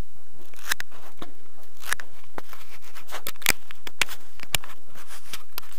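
Handling noise: a string of irregular sharp clicks and short rustles as a handheld camera is picked up and turned around.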